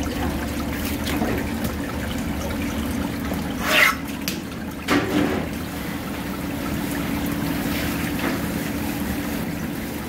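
Water trickling steadily over a low steady hum, with a brief louder surge of noise about four seconds in and a knock about a second later.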